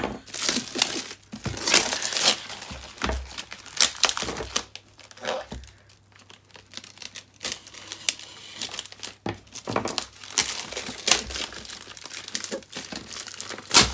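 Clear plastic wrapping being crinkled and pulled off a rolled package by hand, in irregular rustling, crackling bursts with a brief lull about six seconds in.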